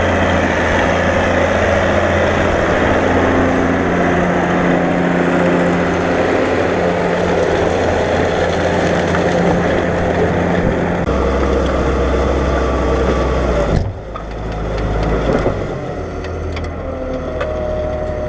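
New Holland 8160 tractor's six-cylinder diesel engine running steadily under load. About two-thirds of the way through, the engine note drops and the level dips suddenly; after that it runs quieter, with a rising whine near the end.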